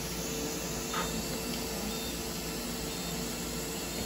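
Steady hiss with a constant hum from surgical equipment running during a laser C-section.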